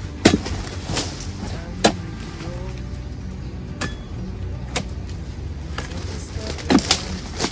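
Steel harvesting chisel (dodos) on a long pole jabbed into the frond bases of an oil palm: a series of sharp chopping strikes about a second apart, the loudest near the start and near the end.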